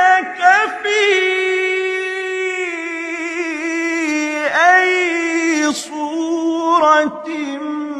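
A man's voice reciting the Quran in a melodic, unaccompanied chant. He holds long notes decorated with quick turns, slides down sharply about four and a half seconds in, and takes brief breaths near the end.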